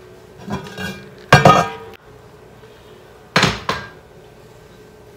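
Heavy lid of a hot enamelled cast-iron Dutch oven lifted off with a pot holder. It clanks against the pot with a brief metallic ring about a second in, and clanks again, sharply, about three and a half seconds in.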